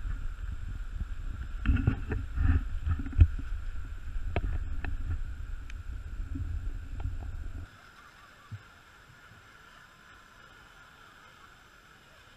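Low rumble of wind on the camera's microphone, with scattered knocks and clicks from a scale RC rock crawler climbing a dirt mound. About two-thirds of the way through the sound cuts to a much quieter background with one soft thump.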